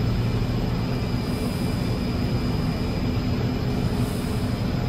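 PVC hot/cold mixer line running steadily, the hot mixer in its first stage at 700 rpm: a constant machine drone with a steady low hum.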